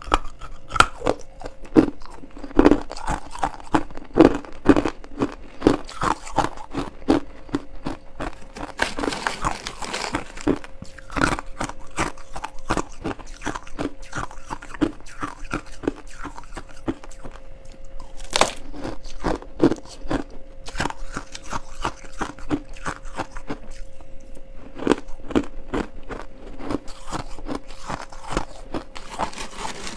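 Crunching and chewing of mouthfuls of shaved frost ice: a dense, irregular run of crisp crunches.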